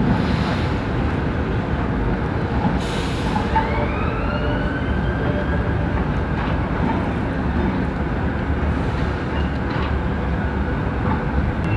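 City bus-stop traffic: a steady rumble of bus engines, with short bursts of hissing air near the start, about three seconds in and about nine seconds in, and a rising whine from about three and a half seconds in.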